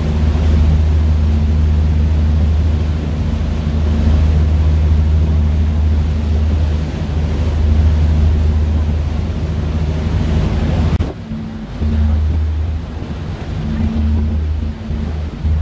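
A ferry's engines drone steadily under a rush of wind and water. About eleven seconds in the rushing hiss drops away and the low drone turns uneven.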